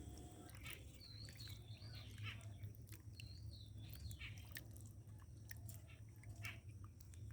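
Faint wet squishing and small clicks of raw chicken pieces being washed by hand. A bird chirps twice in the background, each a short wavering high whistle.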